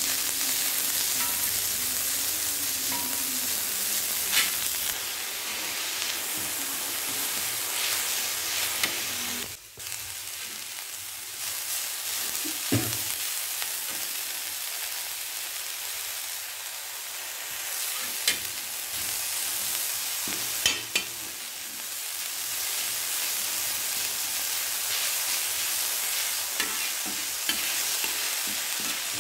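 Chopped onions and green chillies sizzling steadily in hot oil in a wide pan, stirred with a steel spatula that clicks and scrapes against the pan now and then. The sizzle dips briefly about ten seconds in.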